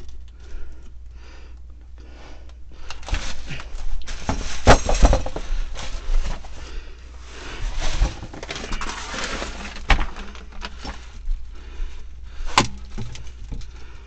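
Handling noise from plumbing work: scraping, rustling and irregular sharp knocks as plastic pipe and debris are moved about, with the loudest clatters about five seconds in and again near the end.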